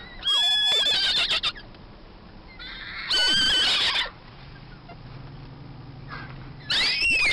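Three loud whinnies about three seconds apart, each a high, wavering call, the last rising and then falling in pitch.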